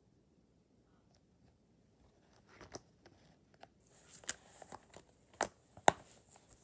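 Plastic multi-disc DVD case being handled and closed: after a quiet start, a few light clicks, then rustling with several sharp plastic snaps and clacks from about four seconds in.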